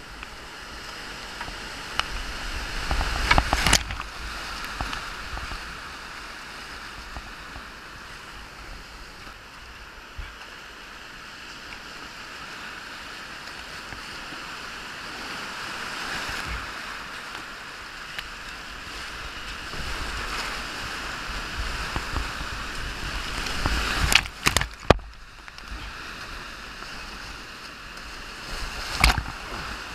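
Whitewater rapids rushing around a kayak, a steady roar of churning water. Loud splashes break in about three seconds in, twice around twenty-four seconds, and again near the end.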